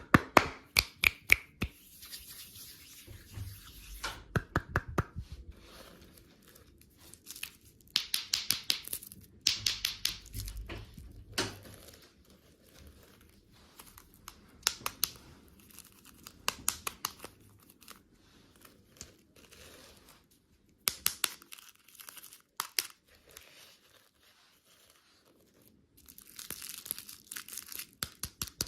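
Plastic candy wrappers being torn open and crinkled, in bursts of sharp crackling with quiet pauses between.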